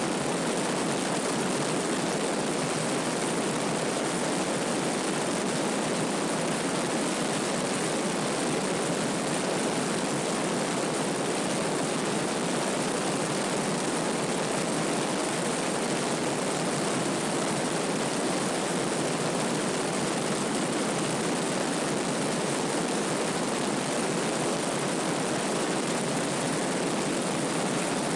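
Steady rush of wind and propeller-engine drone from a Piper PA-32 single-engine plane in flight, picked up by a camera mounted outside the aircraft.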